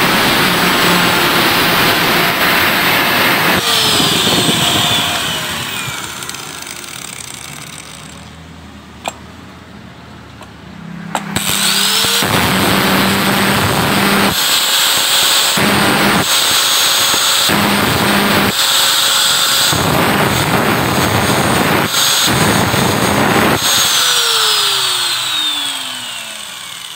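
Electric angle grinder and drill running together while the grinder disc cuts an engine valve's stem tip as the valve spins in the drill chuck. The motors wind down with a falling whine about four seconds in and start again about eleven seconds in, the cutting comes and goes in short spells, and they wind down again near the end.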